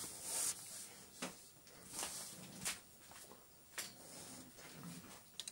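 Handling sounds of a diecast and plastic action figure's parts: soft rubbing with three light clicks, as the weapon is slid along its hand adapter.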